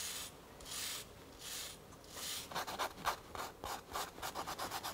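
Brass-bristle brush scrubbing sawdust out of the teeth and carving of a CNC-milled comb: a few slow strokes, then quick short strokes about five or six a second from about halfway.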